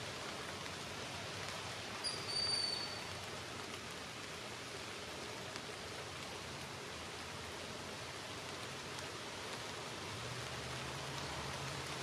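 One high, thin two-part whistle of a broad-winged hawk about two seconds in, a short note then a longer level one, over a steady hiss. A faint low hum comes in near the end.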